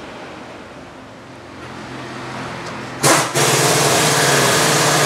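Faint workshop background noise, then about three seconds in a car engine starts with a sudden loud burst and settles into a loud, steady run.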